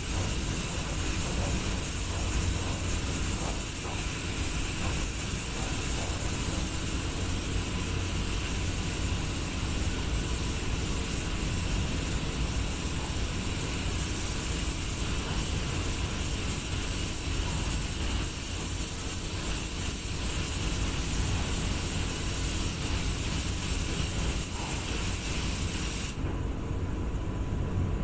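Steady hiss of compressed air from a gravity-feed paint spray gun as it sprays, over the low rumble of a paint booth's ventilation; the hiss cuts off near the end, leaving the rumble.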